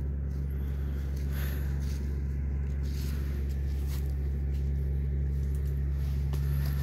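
A steady low hum from a running motor, unchanging throughout.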